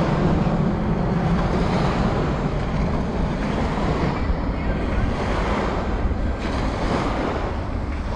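Steady wind rushing over the microphone, mixed with small surf washing up onto a sandy beach.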